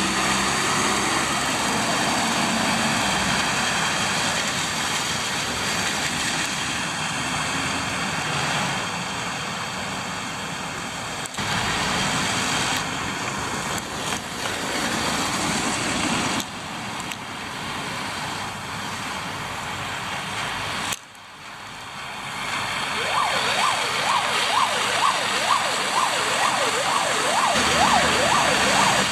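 Street traffic on a slushy road: heavy trucks and cars passing with a steady hiss of tyres on wet snow, cut off abruptly a few times. Over the last few seconds, a fast wavering siren rises and falls several times a second.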